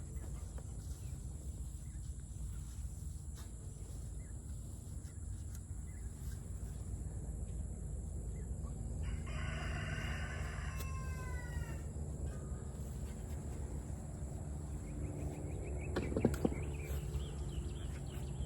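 A rooster crowing about nine seconds in, one long call whose end falls in pitch, with a fainter call later. A sharp knock near the end, over a steady low outdoor background.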